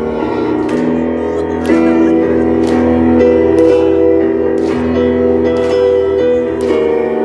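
Black metal band playing live: electric guitars holding long chords that change about every second, with drums and repeated cymbal crashes.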